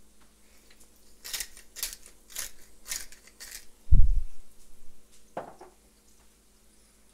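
Hand-held spice grinder being twisted to grind lemon pepper: five short crunching grinds, about two a second, followed by one heavy low thump.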